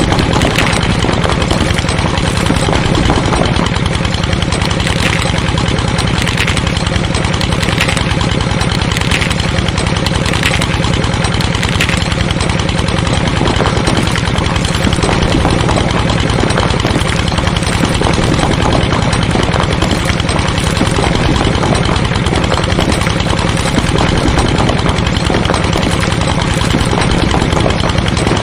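A small engine running steadily at idle. During the first twelve seconds a short higher-pitched squeak or tick recurs about every second and a half.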